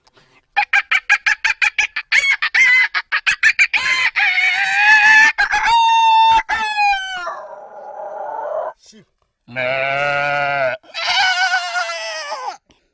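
A man's vocal imitation of a chicken: a fast run of clucks for about three seconds, then several long, drawn-out crowing calls like a rooster's, with short gaps between them.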